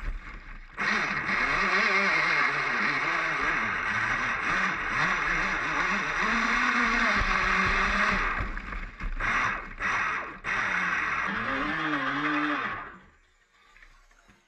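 Battery-electric WLtoys WL912 RC speedboat heard from its onboard camera while running across open water: a loud rush of water and motor, with a pitch that rises and falls as the throttle changes. Near the end the sound cuts out abruptly as the bow plunges into spray.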